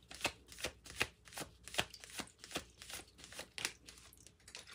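A deck of tarot cards being shuffled by hand: a run of soft, irregular card flicks and taps, several a second, dying away near the end.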